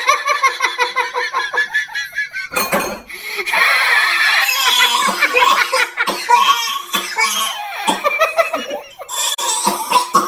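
Hearty human laughter in repeated bursts, with a short pause about two and a half seconds in.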